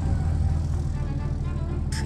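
Steady low drone of a motor vehicle on the move, with music fading in over it.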